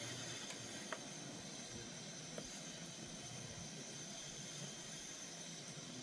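A faint, steady hiss with two small clicks, about one and two and a half seconds in.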